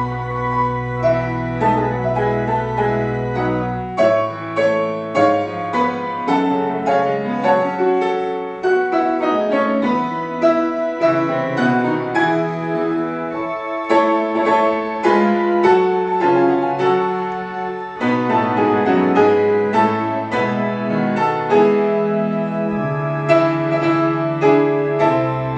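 Piano playing an instrumental passage of chords and moving notes, with a low bass note held steady underneath for the first few seconds.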